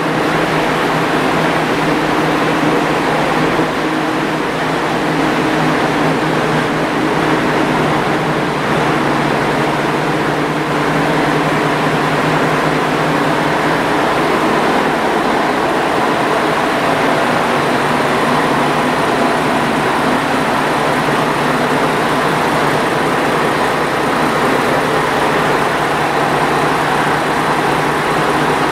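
Diesel engine of a stationary JR Kyushu KiHa 140 railcar idling steadily, heard close beside the car body.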